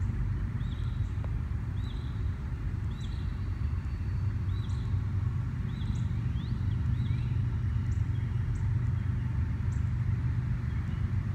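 Outdoor ambience: a steady low rumble throughout, with a small bird chirping short, repeated calls about once a second that stop around seven seconds in.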